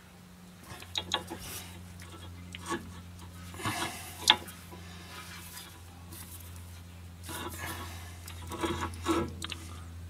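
Brake caliper piston wind-back tool being turned by hand, winding the piston back into a Citroen C8 rear brake caliper: irregular scraping and ratchety clicks, the sharpest about four seconds in, over a steady low hum.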